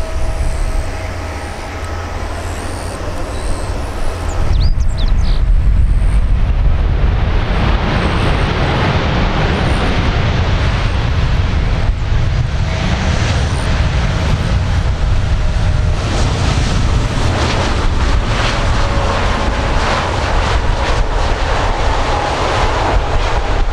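Boeing 787-8 airliner's Rolls-Royce Trent 1000 engines on the landing rollout just after touchdown. A steady engine hum gives way, about four seconds in, to a loud low rushing roar that builds and then holds, the engines spooling up for reverse thrust to slow the jet on the runway.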